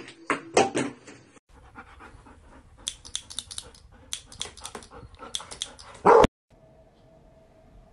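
A metal hand tool snaps shut repeatedly in quick runs of clicks while a dog pants, with one loud short bark just after six seconds.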